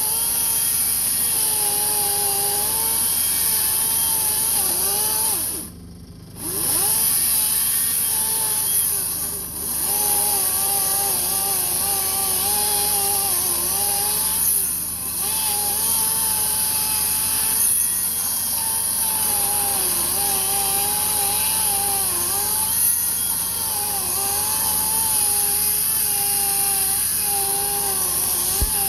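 Chainsaw running hard and cutting through a fallen tree trunk, its pitch wavering as the chain bogs in the wood and recovers. It drops away briefly about six seconds in and again for a moment near nine and a half seconds.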